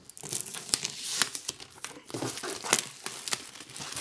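Plastic shrink-wrap film being torn and peeled off a cardboard box, crinkling and crackling irregularly, with a short lull about halfway through.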